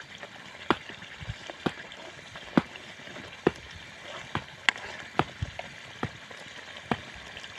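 Chicken cooking: sharp, irregular pops about once a second over a faint steady hiss.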